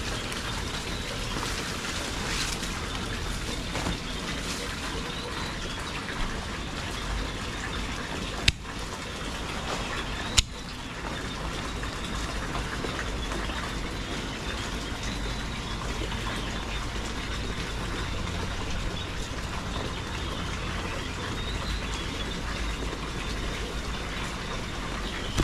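Steady rushing of water, an even hiss with no let-up, broken twice by a sharp click about eight and a half and ten and a half seconds in.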